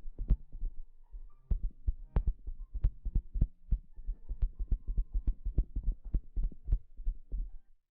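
Rapid, irregular soft low thumps close to the microphone, several a second, stopping abruptly near the end.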